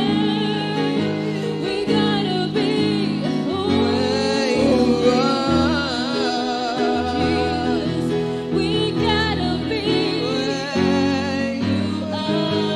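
A woman singing a gospel worship song into a microphone, her voice wavering and sliding between held notes, over an instrumental accompaniment of sustained chords and bass.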